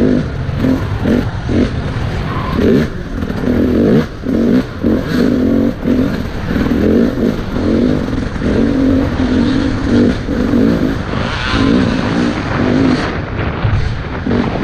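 Dirt bike engine revving up and down as it is ridden hard on an off-road course, heard from a helmet-mounted camera.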